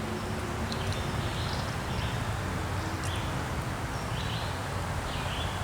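Outdoor ambience: a steady background rush with short, high bird chirps repeating every second or so.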